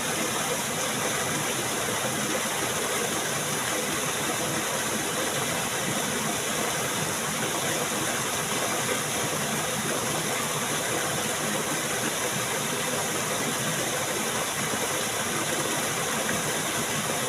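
Steady rushing of flowing stream water, an even, unbroken hiss.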